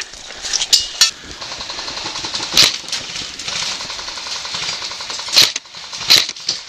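Airsoft guns firing on full auto: a fast continuous rattle lasting several seconds, broken by a few sharp louder cracks of shots or BBs striking nearby, and ending about a second before the end.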